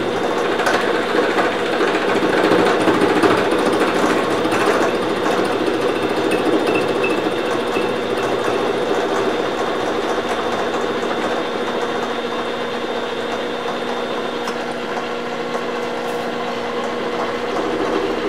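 Milling machine running a gear cutter through the teeth of a spur gear repaired with TIG-welded silicon bronze, taking a light finishing cut with coolant: a steady mechanical hum and whine with fine cutting chatter throughout.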